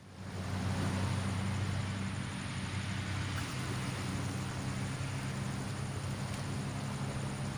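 A steady low engine hum over a constant hiss, unchanging throughout.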